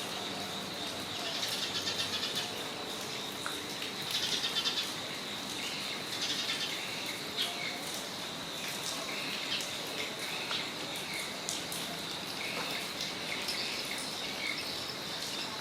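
Rain on a front yard: a steady soft hiss with scattered drips, and birds chirping in short bursts, loudest about 2 s and 4 s in, over a continuous high-pitched ringing.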